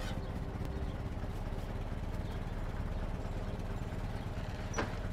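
Old pickup truck's engine running, a steady low rumble, with a short sharp knock near the end.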